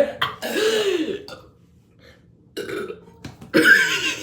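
A person burping after chugging Sprite: one long burp with a rising-then-falling pitch about half a second in, then, after a short pause, more burps, the loudest near the end.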